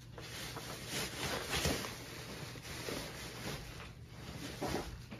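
Bubble wrap and plastic sheeting rustling and crinkling as they are pulled by hand off a packed seat, louder in the first couple of seconds.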